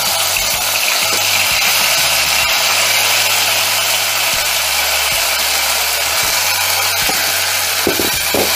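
Chopped tomatoes frying in hot oil in a clay pot, a steady hiss of sizzling as they are stirred with a wooden spatula.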